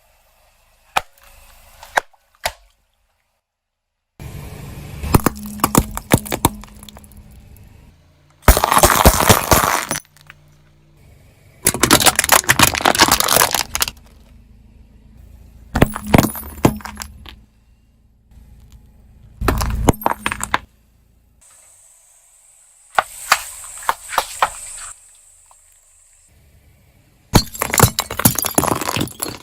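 A run of short clips of objects being crushed, cracking and breaking with glassy clinks and crunches. Each burst lasts a second or two and cuts off abruptly before the next.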